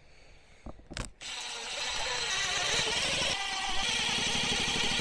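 Cordless oil-impulse impact driver driving a screw into a plastic antenna mounting plate. After a couple of clicks it starts about a second in and runs steadily, breaking briefly near the middle and then going on with a fast, dense rattling pulse.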